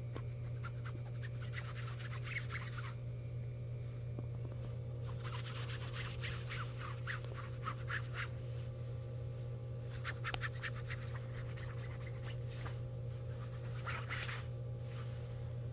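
Four bouts of crackly scratching, each lasting one to four seconds, over a steady low hum.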